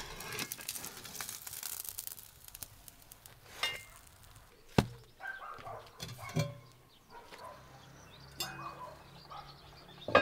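Pancakes sizzling in a cast-iron pan as a wooden spatula scrapes under them, followed by a few sharp knocks of cookware, the loudest a little before halfway.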